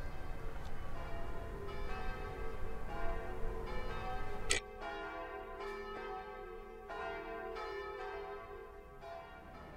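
Slow, bell-like tones struck one after another, about once a second, each ringing on over a low rumble. About four and a half seconds in comes a sharp hit, and then the tones ring on more softly with the rumble gone.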